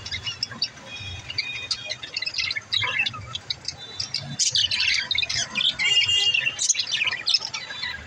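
A flock of budgerigars chattering: a dense, continuous mix of short chirps, warbles and squawks, getting busier and louder about halfway through.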